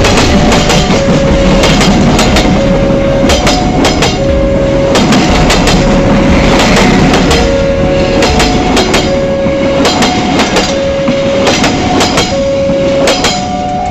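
A train running through a level crossing, its wheels clacking over the rail joints in quick clusters, while the crossing's two-tone warning alarm alternates between a lower and a higher tone about once a second.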